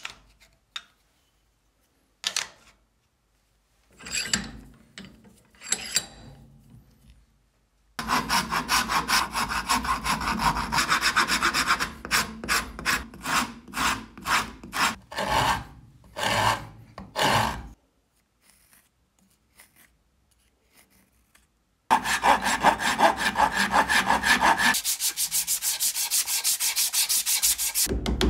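A hand rasp worked in quick back-and-forth strokes on a wooden hatchet handle clamped in a bench vise, in two long spells, the second ending in fast, even strokes. A few knocks come first, as steel jaw covers are set on the vise.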